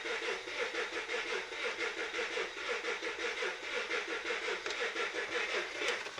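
The 2005 VW Touareg's engine is cranked over on the starter motor for a compression test, pulsing evenly about five times a second, and the cranking stops near the end. The cylinder being tested shows no compression.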